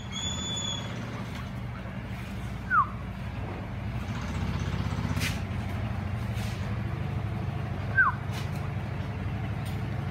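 A steady low machine hum throughout, with two short, falling, whistle-like notes about five seconds apart and a brief steady high whistle at the very start.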